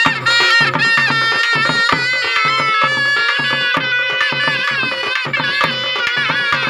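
Indian folk music: a wavering, ornamented melody over a steady held tone, with a hand drum keeping a fast, regular beat.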